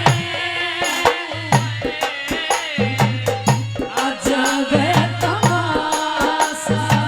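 Live Haryanvi ragni accompaniment playing an instrumental passage: quick, busy hand-drum strokes over a steady low drone, with a wavering folk melody line on top.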